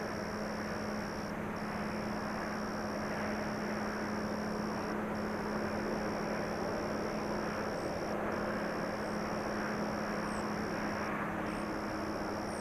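Distant, steady drone of a DD51 diesel locomotive's engines hauling a freight train, a low hum over a wide wash of noise. A thin high-pitched tone runs above it, breaking off briefly every three or four seconds.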